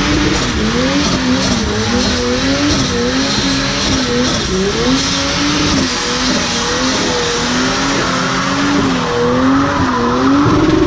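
BMW E30 doing a burnout. The engine is held high in the revs, its note wavering up and down about once a second, over the hiss and squeal of the spinning rear tyres.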